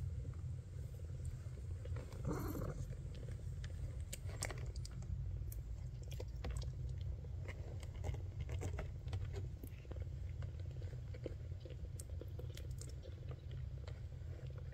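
Maine Coon mother cat purring in a low, steady rumble, with scattered soft wet mouth clicks as she grooms and the newborn kitten nuzzles at her. A brief, slightly higher sound stands out about two seconds in.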